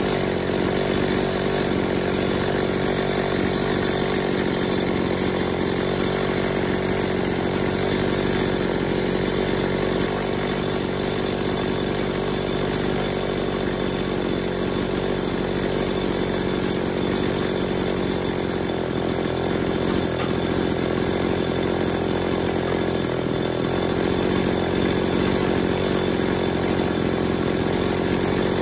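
Two-stroke chainsaw engine idling steadily while its carburetor's low-speed idle mixture screw is being fine-tuned against a tachometer.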